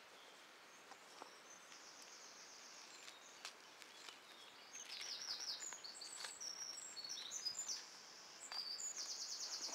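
Songbirds singing, faint and high: a rapid trill about two seconds in, a run of varied short phrases in the middle, and another rapid trill near the end, with a few faint clicks in between.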